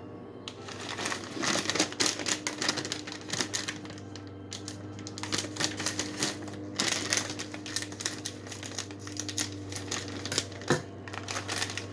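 Foil chip bag of Doritos crinkling and crackling as it is handled and torn open: a dense, irregular run of crackles with short pauses.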